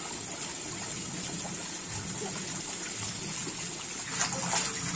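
Tap water running steadily into a plastic bucket, with some splashing from hands in the water about four seconds in.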